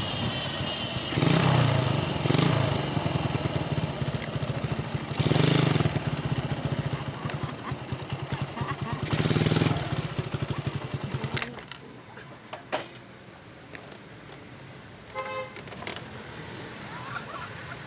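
Suzuki Raider motorcycle engine running as the bike slows to a stop, with four short throttle blips. About two-thirds of the way through it is switched off and cuts out suddenly. Afterwards there are only faint background sounds and a click or two.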